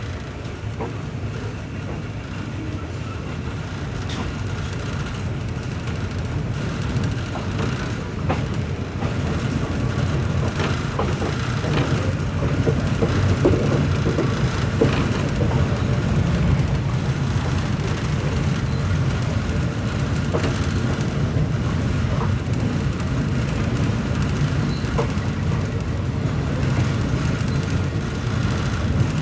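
Passenger train running along the track, heard from aboard: a steady low rumble with scattered short clacks of the wheels over the rails, growing a little louder in the first half.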